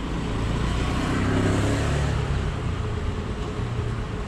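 Motor scooter's small engine passing close by, growing louder to a peak about a second and a half in, then fading as it goes past.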